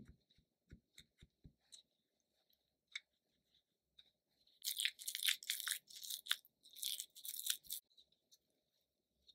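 Silicone spatula stirring egg and liquid into flour in a glass bowl. A few light taps come first, then a run of soft scraping and crunching from about halfway through for some three seconds.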